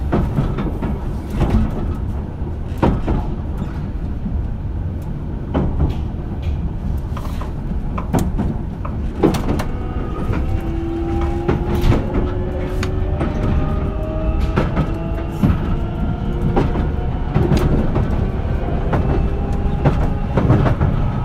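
JR Shikoku 8000 series train running: a steady low rumble of wheels on rail, with sharp knocks every second or so. About halfway through, the Toshiba GTO VVVF inverter and traction motors begin a whine of several tones that slowly rise in pitch as the train accelerates.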